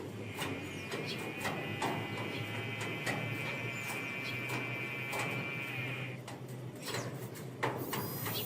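Small birds chirping in many short, sharp notes. Under them a steady held tone sounds for about six seconds and then stops.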